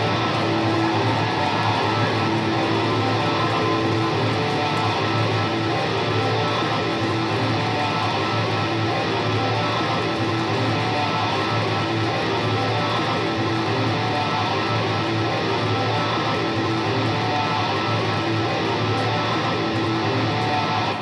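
Live rock band's electric guitars sustaining a loud, dense drone of held notes with no singing.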